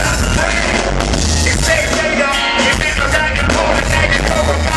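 Live band playing loudly: a male singer on a microphone over bass guitar and drums with cymbal hits.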